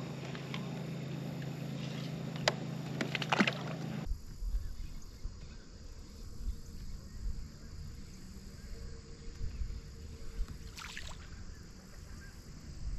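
Quiet on-the-water ambience aboard a fishing kayak. In the first few seconds there are a few sharp clicks and knocks of handling. After that comes a low rumble with one more brief click near the end.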